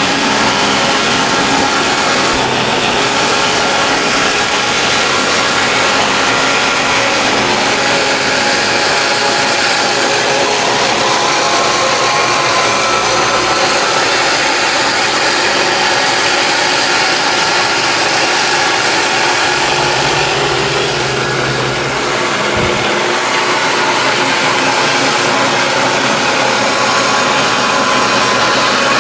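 Engine-powered saw running steadily under load, ripping lengthwise through a log to cut a plank.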